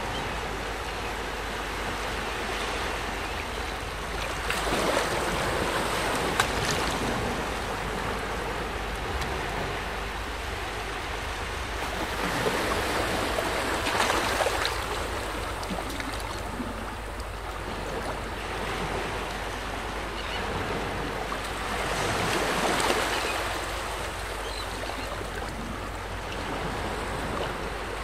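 Small waves washing onto a shore, the rush of water swelling about every nine seconds.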